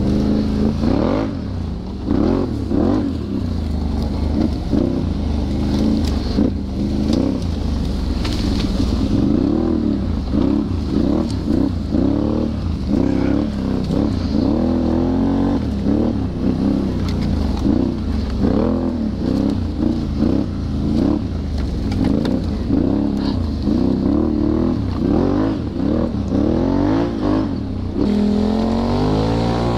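ATV engine revving up and down again and again as it is ridden, its pitch rising and falling about once a second as the throttle opens and closes.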